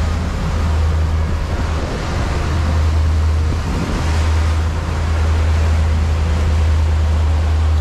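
Sportfishing boat's engine droning steadily while under way, over the hiss of wind and rushing water from the wake. The drone breaks off briefly about four seconds in.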